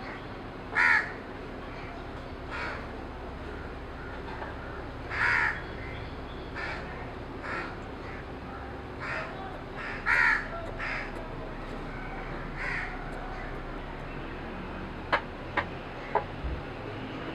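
Crows cawing repeatedly, loudest about a second, five seconds and ten seconds in, with fainter calls between. Near the end, three sharp knocks of a cleaver chopping basil on a wooden block.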